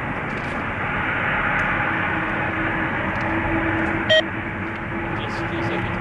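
Boeing 777 jet engines on final approach, a steady rush with a steady whine growing stronger as the plane nears. A short electronic beep cuts in about four seconds in.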